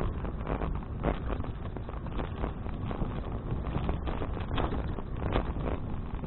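Wind rushing over an action camera's microphone on a moving bicycle, a steady rumble with irregular clicks and rattles through it.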